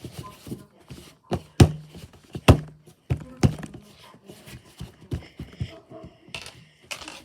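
Play-Doh being pressed and patted into shape on a tabletop: a string of dull thuds and knocks, the two loudest about a second apart near the middle.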